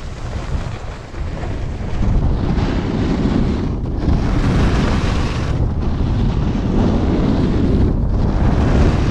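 Wind rushing over an action camera's microphone together with a snowboard's edges scraping over groomed snow as the rider carves downhill. The rushing noise grows louder about two seconds in, with brief lulls in the hiss three times.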